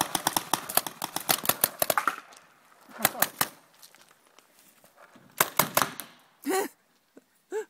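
Paintball markers firing in rapid strings: a long burst of about ten sharp pops a second for two seconds, then two shorter bursts about three and five and a half seconds in.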